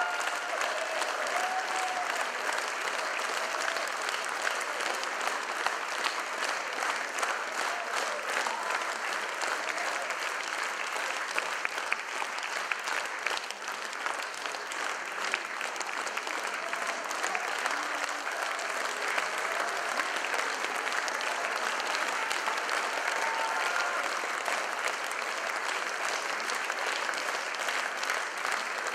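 A large theatre audience applauding steadily, a dense, even crackle of many hands clapping, with a few faint voices calling out now and then.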